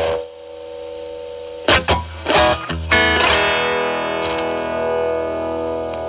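Telecaster played through a Z.Vex Fuzz Factory Vexter fuzz pedal into a Marshall Valvestate amp's drive channel. A few short fuzzed stabs come about two seconds in, then a note struck about three seconds in rings on with long fuzz sustain.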